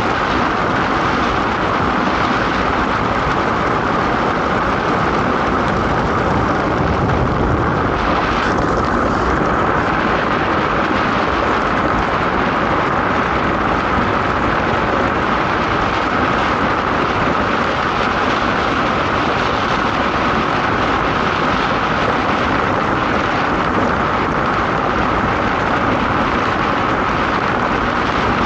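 DN ice boat under way at speed: a loud, steady rush of its steel runners on the ice mixed with wind noise, with a constant hum running through it.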